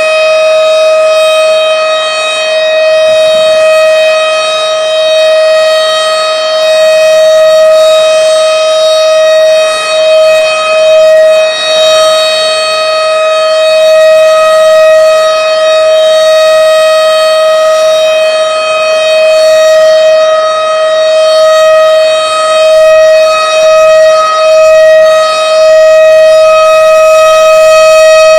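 Several outdoor tornado warning sirens (civil-defense type) sounding a loud steady tone held at one pitch, the loudness wavering and dipping briefly now and then.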